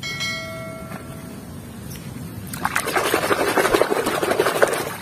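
A hand swishing and splashing through a basin of foamy, muddy wash water, starting about two and a half seconds in and going on to near the end. Before it, a brief electronic chime rings for about a second.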